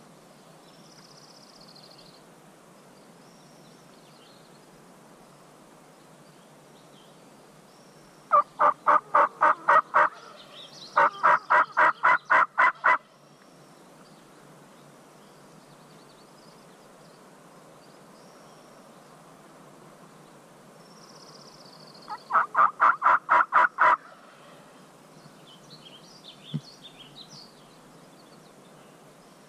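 Wild turkey gobbler gobbling three times, each gobble a rapid rattling run of notes about two seconds long: two in close succession about a third of the way in, and one more about three-quarters of the way through.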